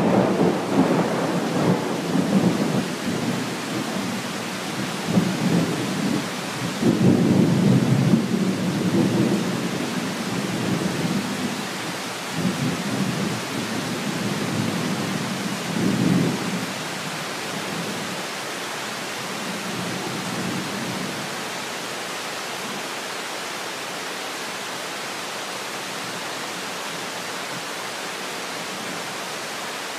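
Thunder rumbling in swells over steady rain, loudest about seven to nine seconds in and again around sixteen seconds, then fading away to the hiss of the rain alone.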